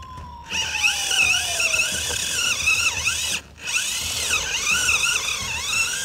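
Electric motor of a Spin Master Monster Jam Grave Digger 1:15-scale RC truck whining as it drives, its pitch rising and falling again and again as the throttle is worked and the wheels spin in dirt. A short break a little past halfway.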